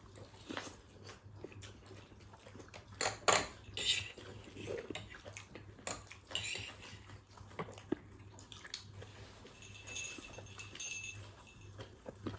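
Cutlery and dishes clinking: scattered light clinks and taps, loudest about three to four seconds in, over a low steady hum.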